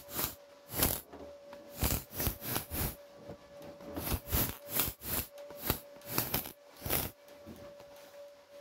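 MIG welder laying a quick series of short tack welds on steel body panel. Each tack is a brief crackling burst, about fifteen in all, roughly two a second, with short gaps between.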